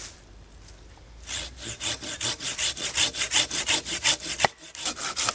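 Hand saw cutting through wood in quick back-and-forth strokes, starting about a second in, with a sharp knock and a brief pause near the end before the strokes resume.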